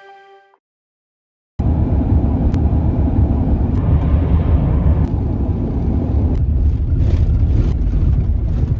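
A truck driving on a rough, sandy dirt road: a loud low rumble with scattered rattles and knocks, starting abruptly about a second and a half in.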